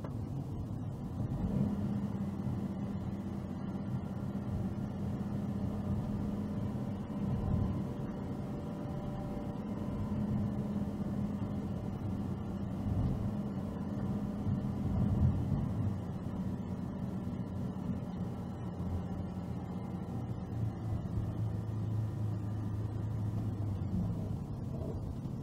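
Car engine and tyre noise while driving along a road. The engine's steady hum drops in pitch about twenty seconds in.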